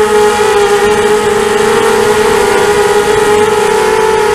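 ZMR250 quadcopter's electric motors and propellers whining in flight, heard from the camera on board: a steady buzzing drone that wavers slightly in pitch as the throttle changes, over a hiss.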